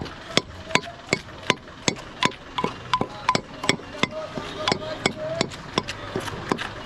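A knife chopping in a steady rhythm, about three sharp strikes a second, as raw fruit is chopped up for bhorta.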